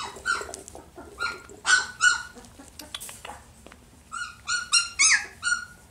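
Young puppies yipping with short, high-pitched squeaky barks while they play-fight. There are scattered yips early on and a quick run of them near the end.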